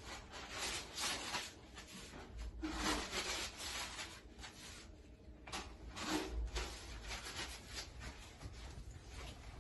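Paper towel pulled from a wall dispenser and rubbed between hands to dry them, a rustling in several separate bursts.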